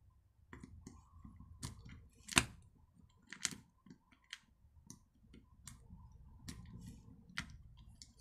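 Irregular sharp clicks and taps of small parts being handled: a screwdriver, screw and thin washer knocking against a chainsaw's plastic recoil starter housing. The loudest click comes about two and a half seconds in.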